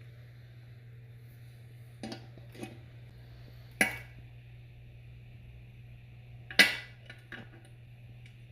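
Sharp metallic clanks of metal parts being handled and set down. The two loudest come about four and six and a half seconds in, with lighter clinks around them, over a steady low hum.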